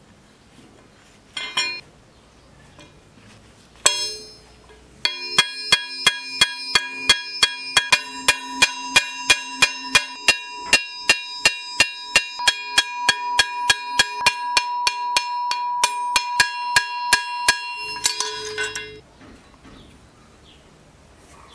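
Hammer peening the pivot rivet of old pincers on a steel plate: two single metal taps, then a steady run of sharp strikes about three a second for some thirteen seconds, each leaving the steel ringing.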